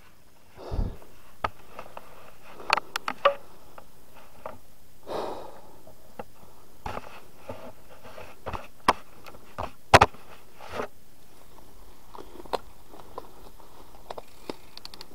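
Mountain bike rolling over a dirt and gravel trail: irregular clicks and knocks as the bike rattles over bumps, with a few short scuffing swells over a low steady rolling noise. The loudest is a sharp double knock about two thirds of the way through.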